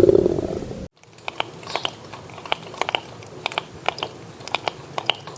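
A low rumbling animal sound cuts off about a second in. After it comes irregular, crisp crunching clicks, a few a second, like an animal chewing crunchy food.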